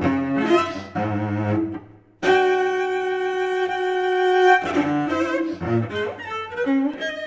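Cello bowed in short, jagged note figures. About two seconds in the sound drops away almost to silence, then a long held note sounds for about two seconds before quick, broken notes return.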